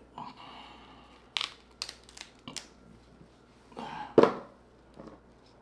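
King crab leg shell being cracked and pulled apart by gloved hands: a few sharp snaps about a second and a half in, then a louder crack and crunch near four seconds.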